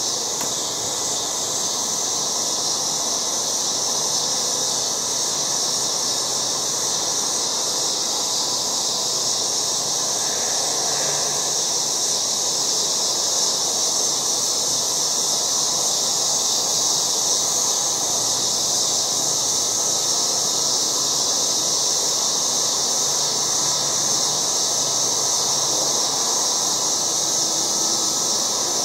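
Cicadas buzzing in a loud chorus: one steady, high, unbroken drone.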